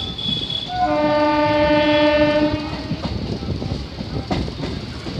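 Local train's horn sounding one long blast of about two seconds as it nears a level crossing, over the rumble of the train running on the track. After the horn come the clickety-clack and knocks of the wheels over rail joints.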